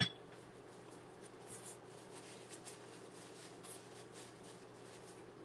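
Faint, soft rustling of a paper towel as hands are wiped dry, in scattered light strokes over a low, steady hum.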